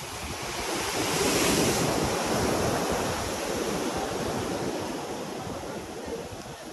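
Sea waves breaking and washing against the concrete base of a pier. The wash swells to its loudest about a second in, then settles into a steady rush.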